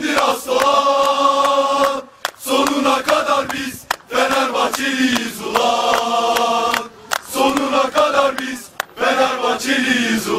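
A group of male football supporters chanting a terrace song together in unison, in sung phrases of two to three seconds broken by short pauses.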